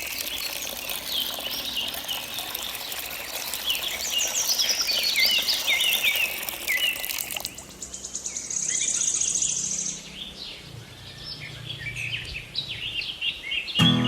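Several small birds chirping and twittering in quick, overlapping calls. A buzzy, rapidly pulsed trill comes in from about eight to ten seconds, then the chirps thin out.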